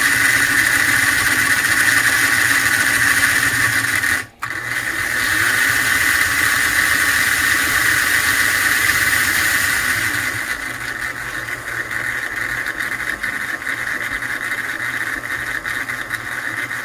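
American Flyer #21089 Washington 4-4-0 toy steam locomotive running on a roller stand, its motor and drive gear making a loud, steady noise that cuts out for a moment about four seconds in and runs on a little quieter after about ten seconds. The noise is new since earlier run tests; the owner puts it down to binding in the drive, with the reverse unit (E-unit) buzzing, and suspects the side rods or a driver out of quarter.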